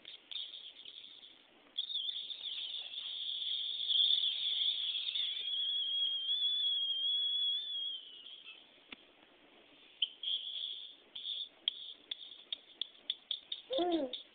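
High-pitched squeaky noises made at a pet: a long wavering squeal lasting several seconds, then a quick run of chirps and clicks, with a short pitched call near the end.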